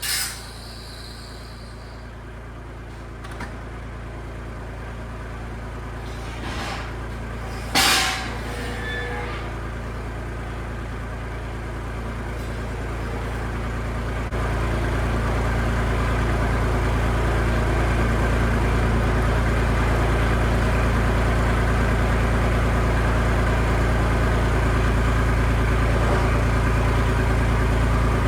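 A tractor engine running steadily, getting louder from about halfway on, with a single sharp knock about eight seconds in.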